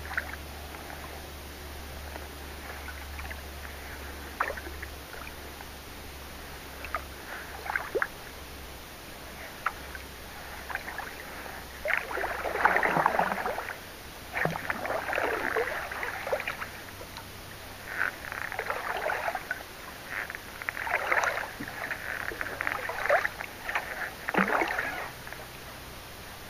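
Kayak paddle strokes splashing in the water: a few light drips and clicks at first, then a splashing stroke every second or two from about halfway through.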